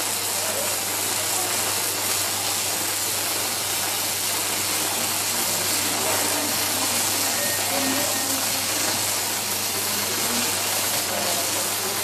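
Robotic arc welding: a steady, even hiss from the welding arc over a constant low electrical hum.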